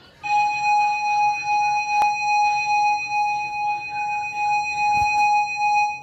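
Emergency Alert System attention tone from a cable TV box during a national test: one steady electronic tone that starts a moment in and holds unbroken, with two short clicks over it.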